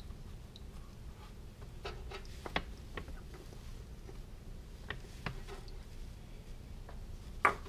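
Scattered light clicks and taps of a spin-on oil filter and nitrile-gloved hands knocking against the motorcycle engine's filter mount as the filter is lined up, over a low steady hum. The sharpest tap comes near the end.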